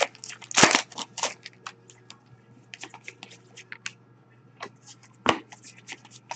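Irregular crinkles, rustles and clicks of hockey card packs and cards being handled and opened, louder in the first second, with one sharp snap about five seconds in.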